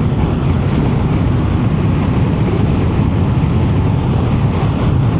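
Royal Enfield Bear 650's 648 cc parallel-twin engine running at road speed, a steady low rumble, with wind rushing over the microphone.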